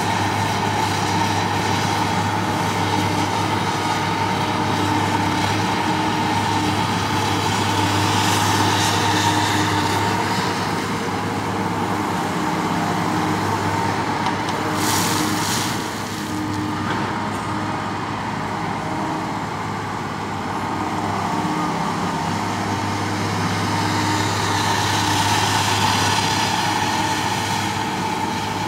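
Caterpillar M318C wheeled excavator's diesel engine running steadily as the machine digs and swings a loaded bucket, with a short hiss about halfway through.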